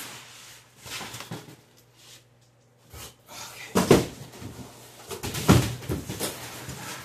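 Large cardboard box being pulled off a packaged LED grow light, with foam packing handled: scraping and knocking, and two louder thumps about four and five and a half seconds in.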